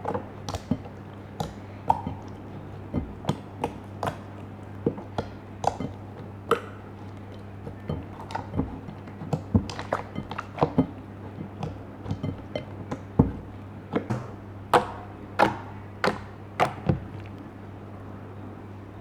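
Slime being squeezed and poked by hand, giving irregular sharp clicks and pops that come thicker and louder about three quarters of the way through, over a steady low hum.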